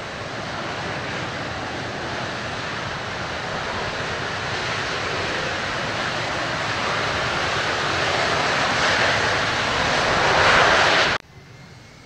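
F-4EJ Kai Phantom II's twin J79 turbojets running as the fighter rolls along the runway, a loud jet rush that grows steadily louder as it draws close, then cuts off suddenly near the end.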